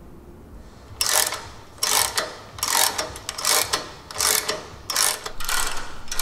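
Hand ratchet wrench clicking in repeated short strokes, about one and a half a second, starting about a second in, as the rear sway bar bolts on the lower trailing arms are run in.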